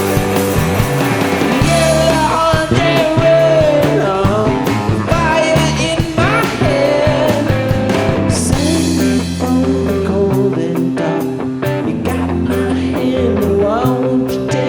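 Rock band playing a loud live jam: sustained bass and chords under a sliding lead melody, with an even, beat-keeping tap running through the second half.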